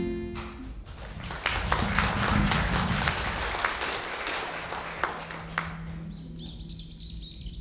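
Audience applauding, the clapping dying away about six seconds in. A rapid series of high chirps follows.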